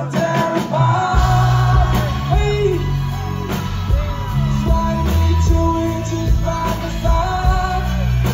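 Live rock band and singers performing a song, heard from the audience: sustained sung melody over guitars and keys, with a heavy bass line and drums coming in about a second in.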